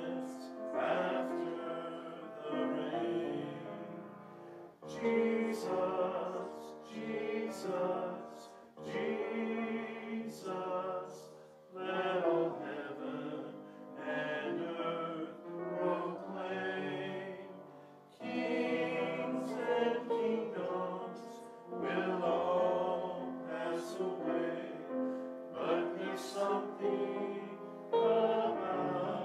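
Small mixed choir of men's and women's voices singing a hymn together, in phrases a few seconds long with short pauses for breath between them.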